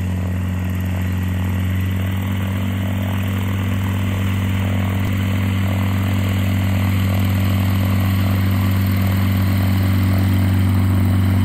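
Pipistrel Virus SW light aircraft's Rotax 912 flat-four engine and propeller running at steady taxi power, a constant-pitched hum that grows slightly louder as the plane comes closer.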